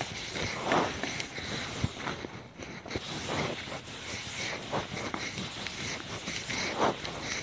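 A board duster wiping chalk off a chalkboard in a series of uneven rubbing strokes.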